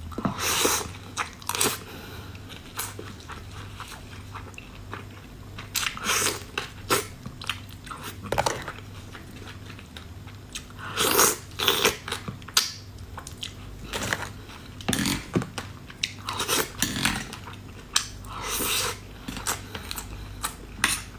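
Close-up eating sounds of spicy crab and rice: wet chewing, bites and crunches coming in irregular bursts, loudest about halfway through.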